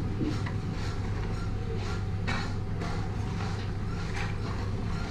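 Fried cashew nuts rustling and clattering as they are scooped and tossed with a metal spoon in a large metal basin, about two to three strokes a second, over a steady low hum.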